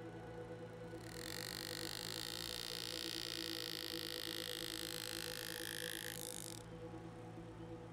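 A steady hiss starts about a second in and cuts off about five seconds later, over a low steady hum.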